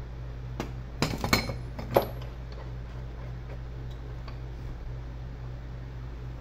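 A few hard clicks and clinks of tools and parts being handled on a workbench: a quick cluster about a second in and one sharp clink at about two seconds, then only faint ticks, over a steady low electrical hum.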